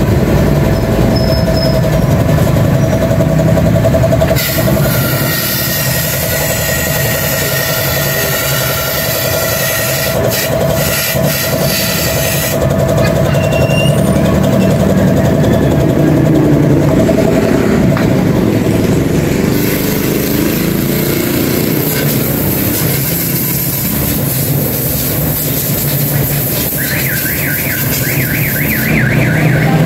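A motor running steadily, with a constant low hum and a held tone. A loud hiss comes in about four seconds in and again about twenty seconds in. There is a fast rattle near the end.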